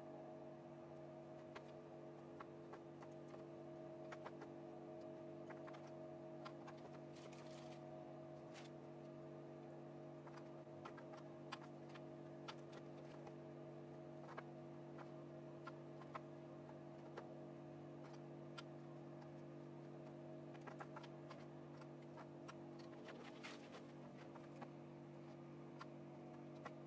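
Faint steady electrical hum with scattered small clicks and taps from perfboard, components and tools being handled while a circuit is assembled by hand.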